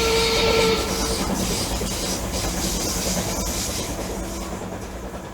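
Train sound effect: a whistle tone with hiss held for about a second, then steady running noise that fades away near the end.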